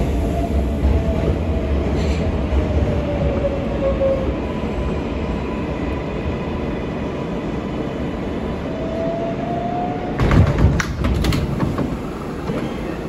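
R143 subway car under way on the J line: steady rumble of wheels on the track with the traction motors' thin whine falling in pitch over the first few seconds, then rising again. About ten seconds in comes a loud burst of clattering, the loudest part.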